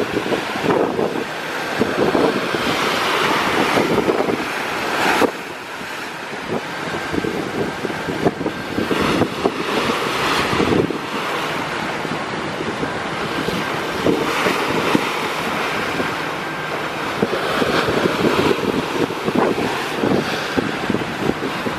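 Wind buffeting the microphone over the rushing wash of sea water along a moving boat's hull, rising and falling in gusts.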